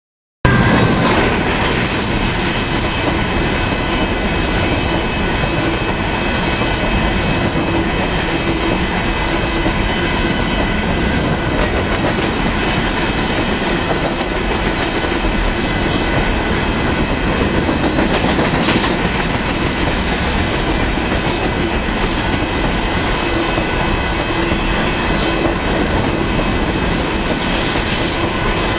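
Loaded grain train's covered hopper cars rolling past at close range: a steady loud rumble of steel wheels on the rails, with thin, steady high-pitched tones above it. It starts abruptly about half a second in.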